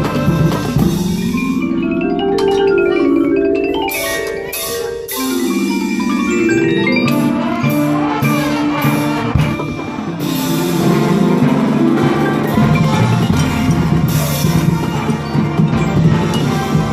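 High school marching band playing, with marimbas and other mallet percussion of the front ensemble prominent, running quick scale passages up and down.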